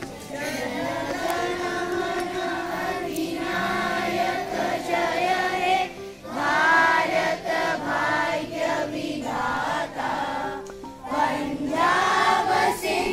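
A group of schoolchildren and women teachers singing a patriotic song together in chorus, with short breaks between phrases about six and eleven seconds in.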